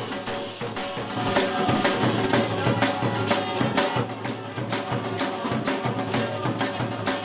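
Kunitha bhajane devotional music: small hand cymbals or similar percussion struck in a steady beat, about three to four strikes a second, over a drum and steady held tones.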